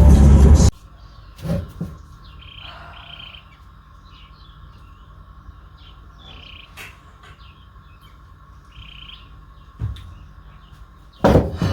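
Birds chirping in short repeated calls every few seconds over a faint steady background hum, with a few soft thumps. The loud noise of the previous moment cuts off abruptly within the first second.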